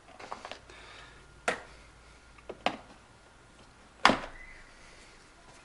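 Hand cutters snipping notches in a plastic wiring-box housing to make an opening for a wire harness: a few sharp snaps about a second apart, the loudest about four seconds in.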